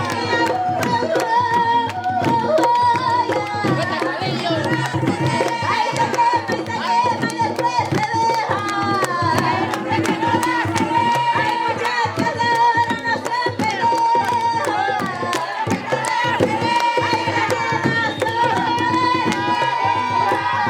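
Tamborito music: Panamanian hand drums beating a fast, steady rhythm, with singing over them.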